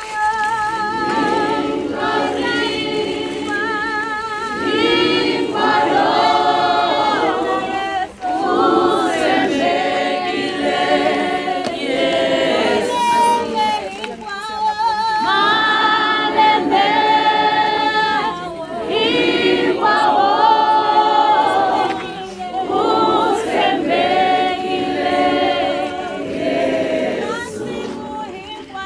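A choir singing unaccompanied, several voices together, with wavering held high notes.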